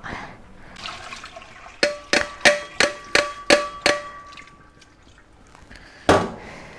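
A stainless steel mixing bowl knocked about eight times in quick succession against a strainer, each knock ringing with a metallic tone, as grated potato is tipped out of it. One heavier thump follows near the end.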